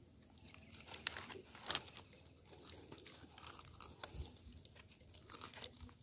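Dry leaves and fabric rustling and crackling as hands work a scarecrow's palm-frond frame, with scattered faint clicks and crunches.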